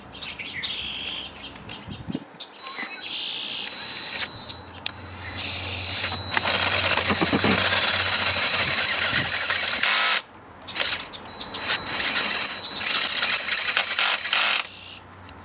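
Power drill running in three bursts with a steady high whine, its bit cutting into a steel bolt on a cylinder head to drill it out; each burst stops suddenly, the longest about four seconds.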